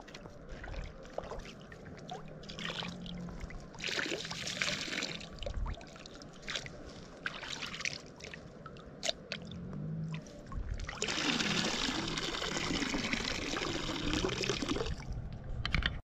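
Vegetables being washed in lake water in a small bowl: water trickling and moving in the bowl with light knocks of the produce against it. The water sounds are louder for about four seconds in the second half.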